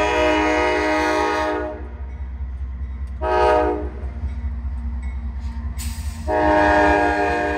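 CSX freight locomotive's multi-chime air horn sounding the long-short-long end of the grade-crossing signal: a long blast ending about two seconds in, a short one about three seconds in, and another long one starting about six seconds in. Under it, the steady low rumble of the double-stack intermodal train rolling past.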